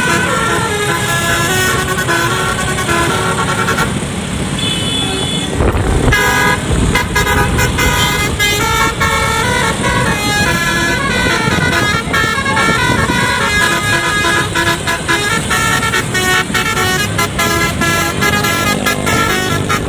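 Basuri musical air horn playing a long run of a tune, its notes changing every fraction of a second, over a vehicle engine's rumble.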